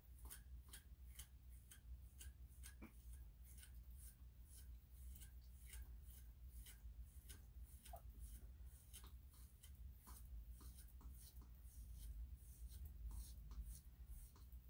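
Faint, quick scratchy strokes of a metal grooming comb drawn through a long-haired Chihuahua's coat, about two a second, as it works mats out of the fur.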